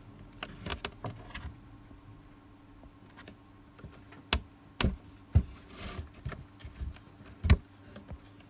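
Scattered sharp taps and knocks, a few soft ones in the first half and several louder ones in the second half, with light rustling between them.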